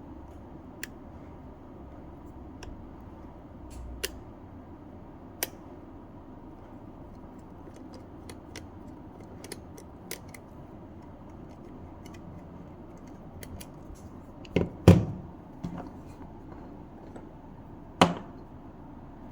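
Small scattered clicks and taps of a screwdriver and hands working on a Ring video doorbell and its mount, with a couple of louder knocks about two-thirds of the way through and one more near the end.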